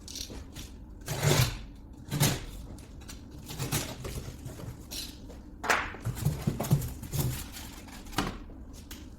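Packaging being handled and opened during an unboxing: a string of short rustles, scrapes and soft knocks, irregularly spaced, over a faint steady low hum.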